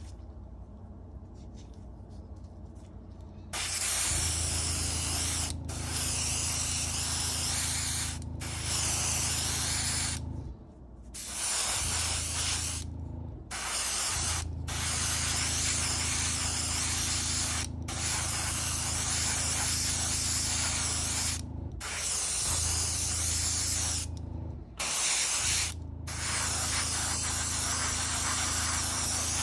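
Airbrush spraying a coat of grey surfacer primer onto a small model part: a hiss in long bursts, with a low hum under it, broken by short pauses as the trigger is released. The first few seconds are quieter, before the spraying starts.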